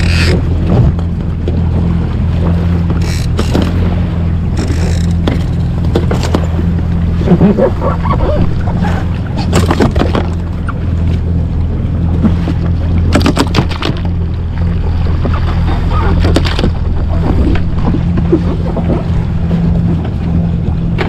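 Yamaha jet ski engine running with a steady drone while under way, with water splashing against the hull and occasional knocks.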